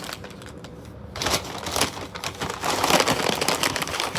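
Small bag of chips being handled, its plastic crinkling in a dense crackle that starts about a second in and keeps going.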